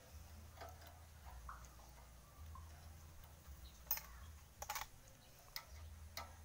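Faint, irregular metallic clicks and ticks of hand tools on a small gasoline engine's carburetor as it is being unbolted, the loudest about four and five seconds in, over a low steady rumble.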